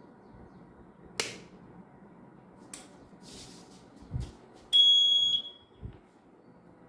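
A sharp click and a low thump, then one loud, high electronic beep lasting well under a second, followed by another soft thump.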